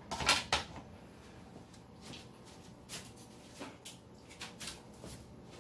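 Handling noise from the phone as it is moved and set down: a brief loud rustle at the start, then scattered faint clicks and taps.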